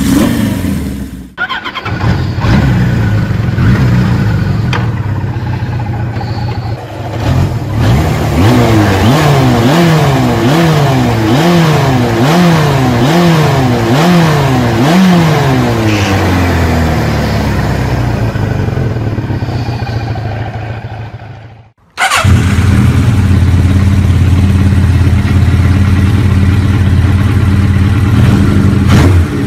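Motorcycle engine revved in a run of quick throttle blips, a little more than one a second, each rising and falling. After an abrupt cut, a different recording of a motorcycle engine runs steadily in the last third.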